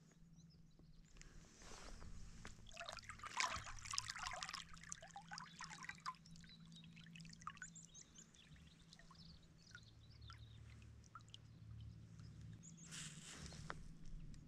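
Water trickling and dripping off a kayak paddle's blades as it dips into calm sea, faint and irregular, with a short louder splash of a stroke near the end.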